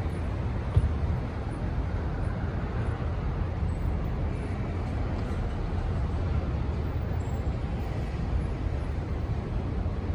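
City street traffic: a steady low rumble of passing vehicles, with one brief thump about three-quarters of a second in.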